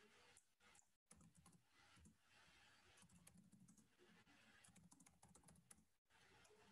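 Near silence: faint room tone with soft, scattered clicks.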